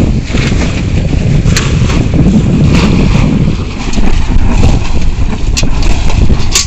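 Wind buffeting the microphone outdoors: a loud, steady rumbling rush, with a few short clicks.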